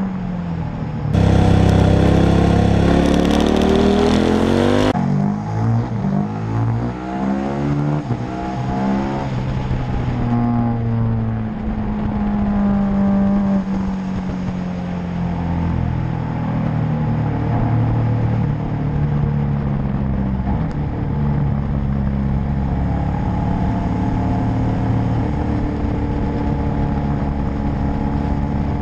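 KTM 1290 Super Adventure S's V-twin engine heard from on board, revving up and down through the gears with wind rushing over the microphone. There is a loud burst of rushing noise for about four seconds a second in.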